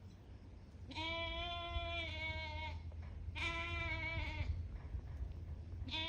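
Young hair-sheep rams bleating: two long, steady calls, then a third starting near the end. They are calling for the ewes they have been separated from.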